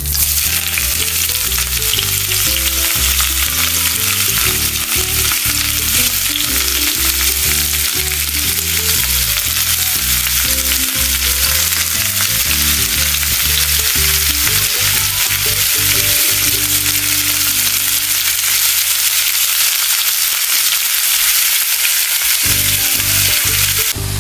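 Batter fritters (onion pakoras) deep-frying in hot mustard oil in a small iron wok: a steady, dense sizzle.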